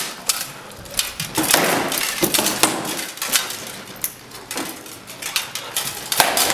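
Armoured combat with rattan swords striking shields and armour, a series of irregular sharp clacks and thuds as the fighters exchange blows.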